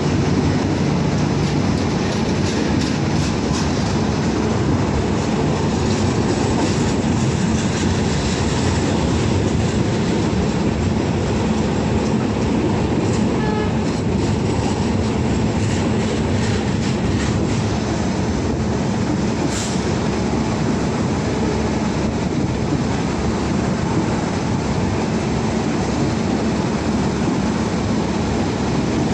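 Indian Railways express train coaches rolling past at a station platform. The wheels keep up a steady loud rumble, with scattered clicks as they cross the rail joints, most often in the first third.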